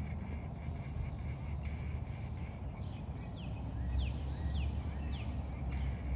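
Outdoor ambience with a steady low rumble, a few brief rustling bursts, and about halfway through a run of four short whistled calls, each falling in pitch, roughly two every second.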